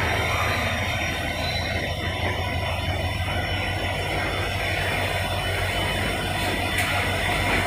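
Passenger train coach rolling slowly along the track, heard from its open doorway as a steady low rumble and hum with running noise.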